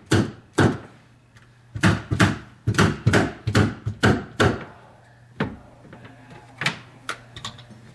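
Hammer striking a carpet stair tool, driving the carpet down into the stair crease: sharp knocks about two a second for the first few seconds, then a few single strikes spaced out near the end.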